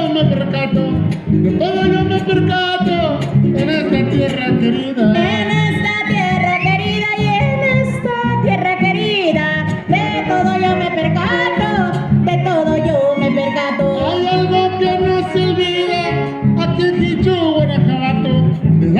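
Huasteco trio playing a huapango: a violin melody over strummed jarana and huapanguera, with singing in falsetto.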